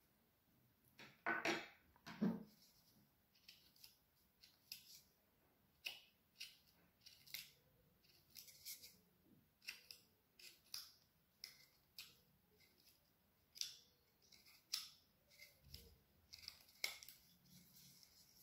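Short, crisp slicing cuts of a carving knife taking thin shavings from a wooden branch, one every half second to a second, with two louder cuts a second or two in.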